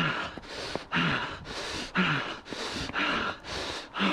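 A runner gasping for breath after climbing steep steps mid-run. The breaths are quick and heavy, in and out about once a second, and some carry a short voiced groan that falls in pitch.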